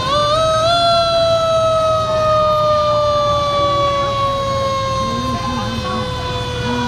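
Fire truck siren wound up briefly near the start, then slowly falling in pitch as it coasts down, over the low rumble of truck engines.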